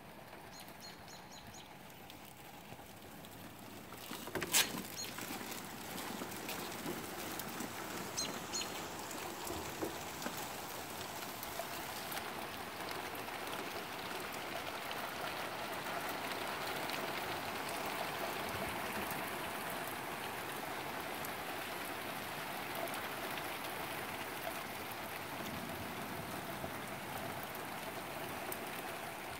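Steady rain falling, growing heavier about four seconds in. A single sharp knock comes about four and a half seconds in, and a few short high bird chirps are heard near the start and again about eight seconds in.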